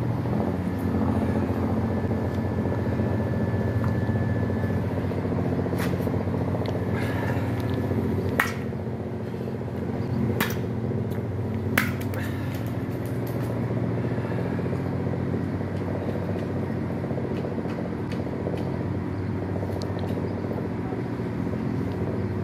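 Steady low drone of an idling engine, with several even tones held throughout. Three sharp knocks come at roughly two-second intervals near the middle.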